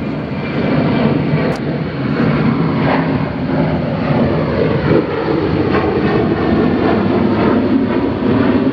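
Aircraft flying overhead: a loud, steady engine drone that swells about a second in and holds.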